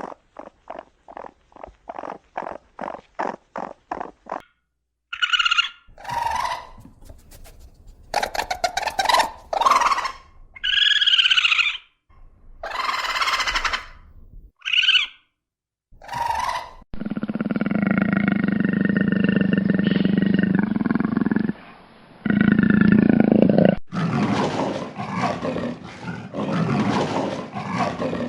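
Wild animal calls: a run of quick, even pulses about four a second, then a string of short calls rising and falling in pitch, then long, loud roars in the second half.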